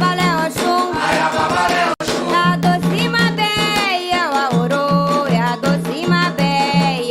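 Candomblé song for the orixás: voices singing over steadily pulsing drums and percussion. About two seconds in the sound breaks off for an instant, and a new song starts.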